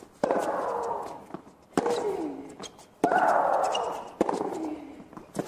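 A tennis rally: the ball cracks off the racket about every one and a half seconds, and most strikes bring a long, loud shriek from the hitting player that falls in pitch, four times.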